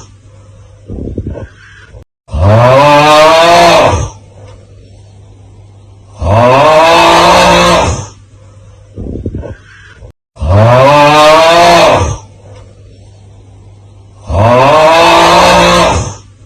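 The 'Aauuggh' TikTok meme sound looped: a man's loud, drawn-out 'aauuggh' yell that rises in pitch as it starts, about two seconds long, heard four times about four seconds apart. A short, quieter sound comes in the gaps between some of the yells.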